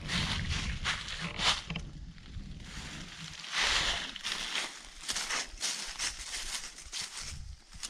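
Footsteps crunching through dry fallen leaves and dirt as someone walks, in irregular steps with a longer scuff about halfway.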